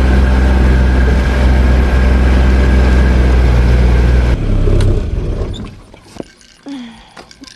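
Motor vehicle engine running steadily with a low hum, then dying away about four and a half to five seconds in, leaving only faint clicks.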